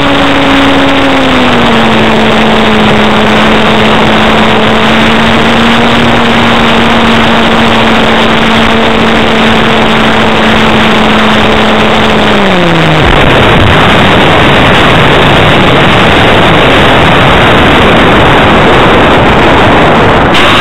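Onboard sound of an RC aerobatic plane's Axi brushless electric motor turning a 10x5 propeller: a steady whine that drops slightly in pitch about two seconds in, then winds down about twelve seconds in as the throttle is cut. After that, loud wind rush over the onboard camera microphone as the plane glides in low over the runway to land.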